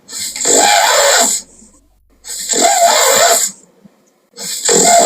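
A person snoring loudly: three harsh snores of about a second and a half each, coming roughly every two seconds with quiet gaps between.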